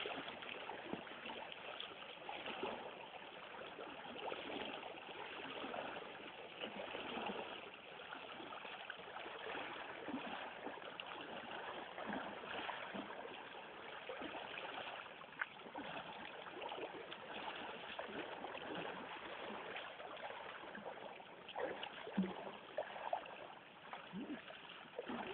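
Water rushing and splashing around a person being towed through a river on a rope, a steady churning wash with a few sharper splashes near the end.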